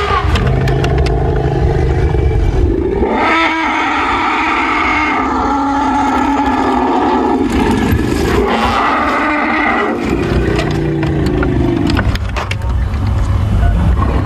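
African elephants trumpeting and screaming in agitation at a pack of African wild dogs harassing the herd. There are two long, loud bouts: one from about three seconds in, the other about eight to ten seconds in. A low engine rumble runs in the gaps.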